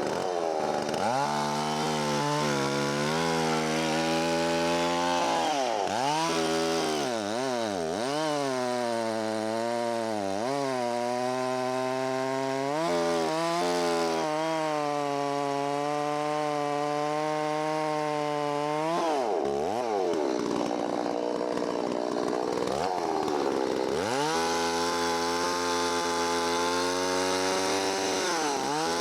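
Holzfforma 660 clone two-stroke chainsaw cutting through a log, its engine pitch dipping under load and picking back up again and again. About twenty seconds in it drops back to a low idle for a few seconds, then revs up again into the cut.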